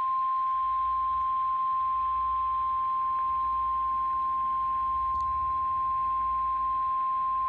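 NOAA Weather Radio 1050 Hz warning alarm tone of an Emergency Alert System broadcast: one loud, steady, unbroken beep at a single pitch, signalling an incoming severe weather warning.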